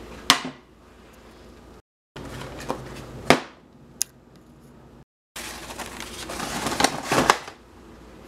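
A frying pan set down on a stovetop with a sharp clank, followed by more clanks and clicks as cookware and a plastic margarine tub are handled. The sound drops out briefly twice where the clips are cut.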